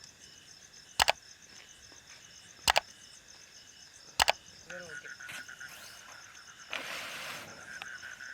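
Insects trilling steadily, with a frog-like steady call joining about halfway through. Three sharp double clicks come about a second and a half apart, and a short rustle comes near the end.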